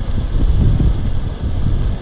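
Storm wind buffeting the microphone: a loud, low rumbling noise that rises and falls in gusts.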